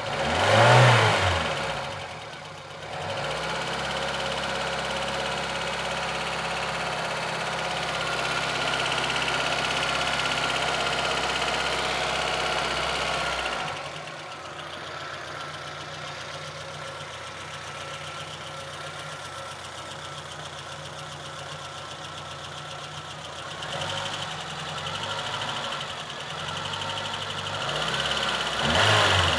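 VAZ-2114's four-cylinder petrol engine running with a knock that the owner cannot place. It is revved briefly, held at a raised steady speed, then drops back to idle about fourteen seconds in, with a couple of short throttle blips later and a rise again near the end.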